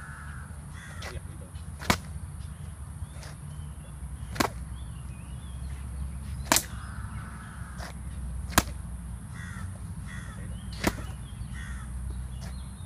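Sharp slaps of hand strikes landing on a partner's body, about one every two seconds, with birds calling in the background.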